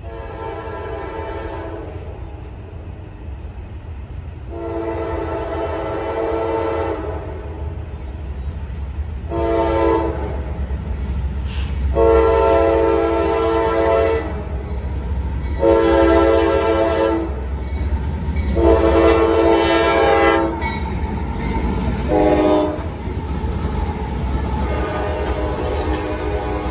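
A Norfolk Southern C6M freight locomotive's multi-chime air horn sounds a series of blasts for a grade crossing: long, long, short, long, then two more long blasts and a final short one. Under the horn the heavy rumble of the locomotives grows as the loaded train nears. Near the end the engines and hopper cars pass at track speed.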